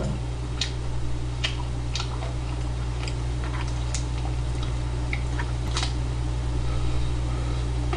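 Scattered light clicks of metal chopsticks against a plastic takeout tray and faint chewing of noodles, over a steady low electrical hum.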